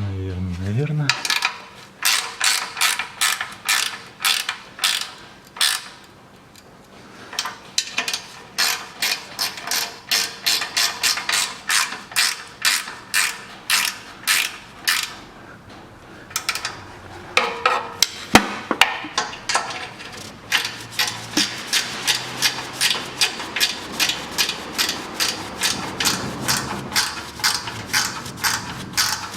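Hand ratchet wrench clicking in series of quick strokes as new bolts on an exhaust heat shield are tightened, with short breaks about 6 and 17 seconds in.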